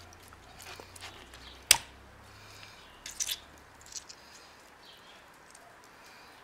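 Hands handling a raw carp on a wooden cutting board. It is mostly quiet, with one sharp knock a little under two seconds in and a few softer clicks and taps about a second later.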